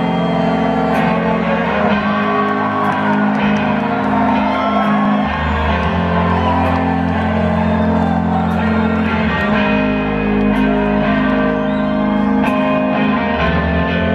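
Live rock band playing, led by an electric guitar over held low bass notes, with the crowd shouting and whooping.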